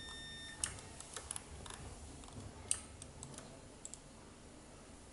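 Scattered light clicks of a computer mouse, a dozen or so at irregular intervals, the loudest about two and a half seconds in, over faint hiss. A steady high electronic tone stops about half a second in.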